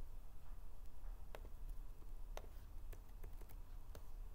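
A few scattered, irregular clicks from a computer being operated while a web page is zoomed and scrolled, over a low steady hum.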